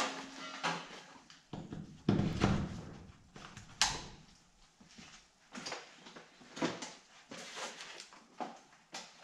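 Scattered clunks and knocks of workshop gear being handled and moved around a shed bench, the loudest a heavy thump about two seconds in, then a sharper knock near four seconds and lighter ones after.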